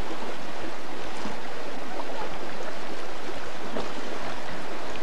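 Shallow creek flowing over riffles: a steady, even sound of running water.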